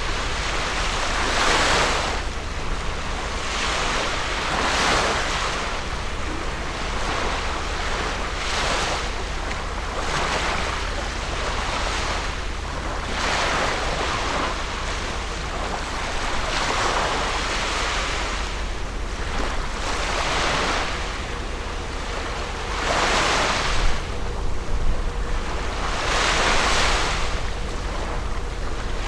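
Small waves washing onto the shore in a regular rhythm, one surge about every three to four seconds, over a steady low rumble.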